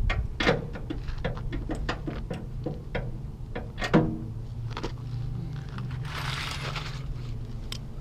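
Metal tools clinking and knocking against a truck's hitch bolts, a dozen or so sharp strikes with a louder clank about four seconds in, over a steady low hum. There is a short hiss near the end.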